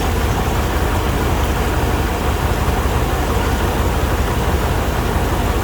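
1998 K1500 pickup's engine idling steadily, running to circulate coolant and purge air through the cooling system after a heater hose replacement.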